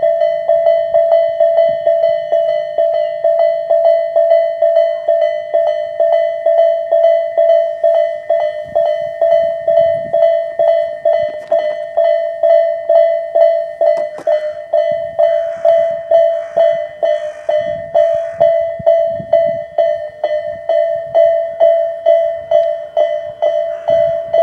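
Tobu 'sound A' electronic level-crossing bell ringing steadily, one pitch struck about twice a second. In the second half a Tobu 10030-series electric train passes, its wheels clattering rhythmically over the rail joints under the bell.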